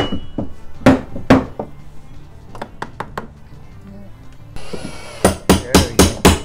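Hammer knocking on the wooden weight-pocket cover in an old sash window jamb: a few sharp wooden blows at the start and a quicker run of about five near the end. A cordless drill whirs briefly just before that last run.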